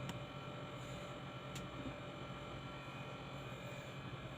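Steady low electrical hum of room tone, with two faint clicks: one at the start and one about one and a half seconds in.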